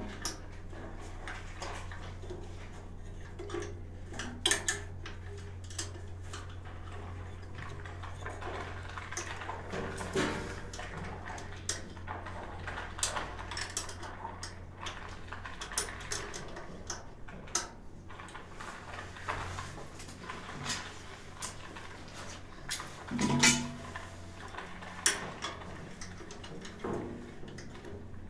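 Hands working on the brass water-flow valve assembly and fittings of a Yang gas water heater: scattered small metallic clinks, clicks and knocks, the loudest about 23 seconds in. A low steady hum sits under them and stops about 16 seconds in.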